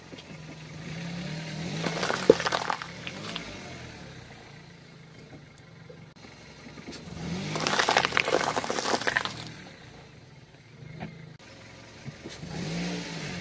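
A slow-rolling car's tyre crushes green peppers on concrete, with crunching and cracking and one sharp pop about two seconds in, over the car's low engine hum. A second run of crunching and crackling comes around eight seconds in.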